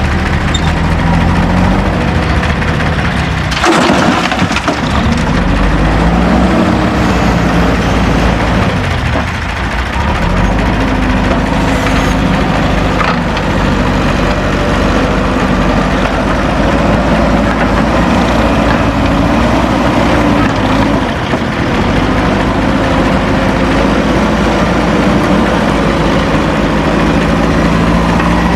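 Heavy diesel earth-moving machinery running and working while loading soil, its engine revving up and falling back several times under load. A short sudden crash sounds about four seconds in.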